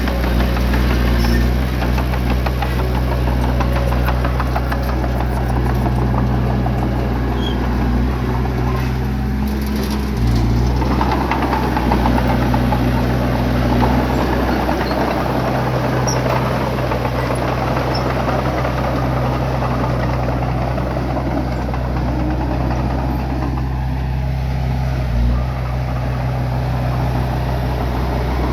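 Bulldozer's diesel engine running steadily under a rough rumble, its pitch shifting briefly about ten seconds in and again near the end.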